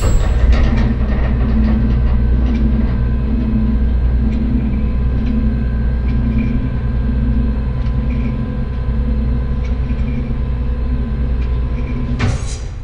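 Heavy bank-vault door moving: a steady low mechanical rumble with a faint hum and light ticks about once a second, ending near the end in one loud metallic clank as the door shuts home.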